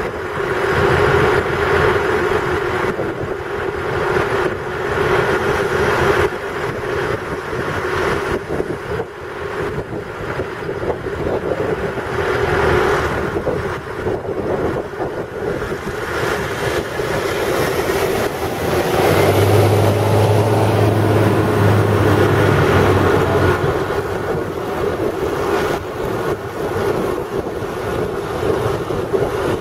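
Engines of armoured military patrol vehicles running, a steady mechanical drone with wind on the microphone. A deeper hum swells for a few seconds past the middle.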